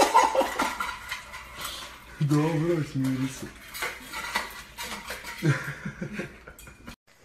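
Metal dog food bowl clattering and scraping on a tile floor in repeated sharp knocks and clinks as a pug puppy pushes its face into it and eats.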